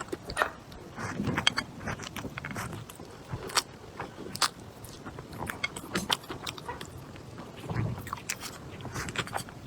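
A person eating: chewing and biting food, with scattered sharp clicks and taps throughout.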